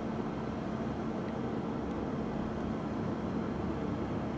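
Steady low rumble of urban background noise with a faint constant drone underneath and no siren.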